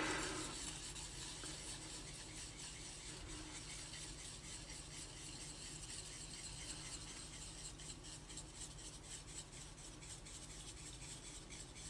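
Faint scraping and rubbing of a metal palette knife dragged back and forth through a strip of paint on a palette, mixing a little black into orange.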